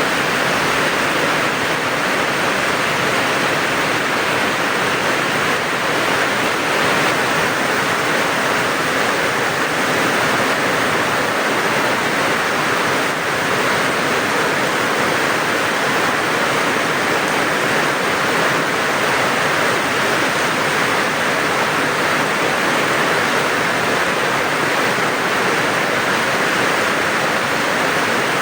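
Steady, heavy rain falling, an even hiss of drops.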